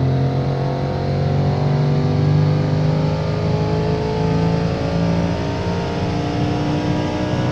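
Audi RS6 C7's 4.0 TFSI V8, converted to a single Garrett G42-1200 turbo, at full throttle on a chassis dyno, its note rising slowly as the revs climb through the upper range. It is running on low boost, about 0.8 bar.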